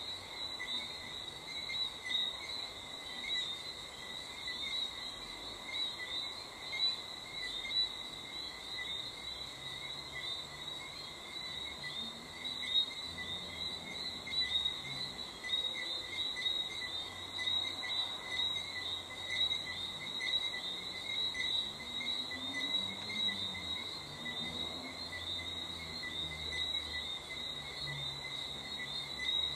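Chorus of crickets chirping steadily in two high pitches, with frogs calling low underneath, more from about midway.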